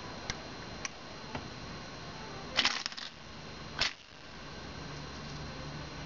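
Cast-iron Speaking Dog mechanical bank being worked by hand: a few light metal clicks, then a quick burst of metallic clacks about two and a half seconds in and one more sharp clack near four seconds as its mechanism moves.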